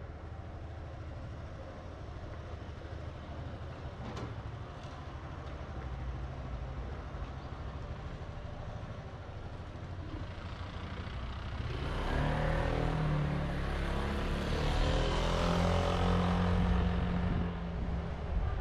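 Steady city traffic hum. From about eleven seconds in, a motor vehicle's engine and tyres grow loud close by and stay loud for about six seconds before easing off.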